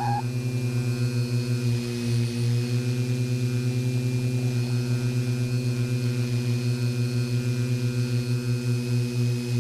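Large quadcopter's four 400 kV motors and 14-inch propellers humming steadily in flight, close to an onboard camera's microphone, with a fast pulsing beat in the hum.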